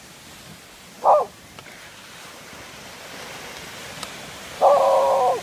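A dog barks twice: a short bark falling in pitch about a second in, then near the end a longer bark held at an even pitch for under a second. Underneath, a steady wash of waves breaking on the shore.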